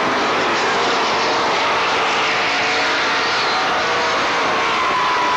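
Several race car engines running at speed together, their pitches rising and falling as the cars pass.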